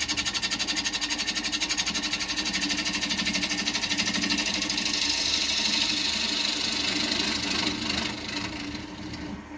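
Wood lathe running while a bowl gouge hollows the inside of a spinning bowl blank: a steady motor hum under the hissing cut, which pulses rapidly. The cut is loudest in the middle and eases off near the end.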